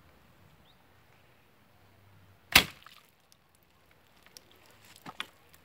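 A single sharp crack about two and a half seconds in: a 25 lb homemade acacia-wood bow shooting a carbon arrow with a broadhead point into a row of water-filled plastic bottles, the release and the hit heard as one snap. A few faint knocks follow near the end.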